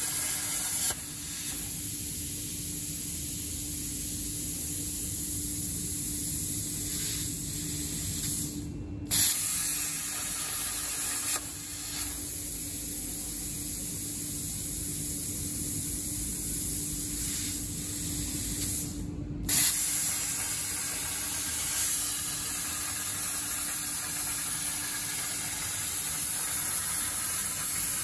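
CNC plasma torch cutting 4 mm Corten steel plate, a steady hiss over a low hum. Twice the sound cuts out for a moment and returns with a sharp burst.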